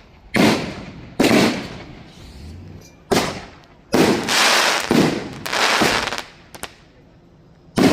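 A multi-shot firework cake going off: a string of loud bangs, six or so, each trailing off, with a longer run of bursts in the middle.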